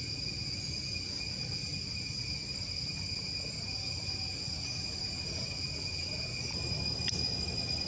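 Steady, high-pitched insect drone holding two constant pitches, over a low rumble. A single short click about seven seconds in.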